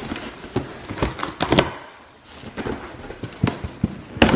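Packing tape being cut with a blade and the flaps of a cardboard box torn open by hand: irregular scratchy rips, crackles and clicks, with the loudest rip near the end.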